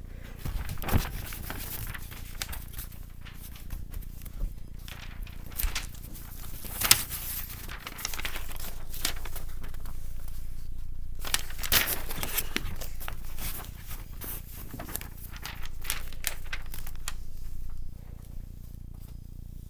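Handling noise from a handheld camera being moved about: irregular clicks, knocks and rustles, with paper crinkling as a sign is handled. A steadier rustling noise sets in about eight seconds in, breaks briefly, and stops near the end.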